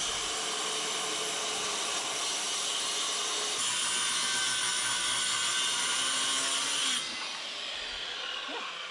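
Power saw cutting straight across house siding, running steadily under load, then switched off about seven seconds in, its blade winding down with a falling whine.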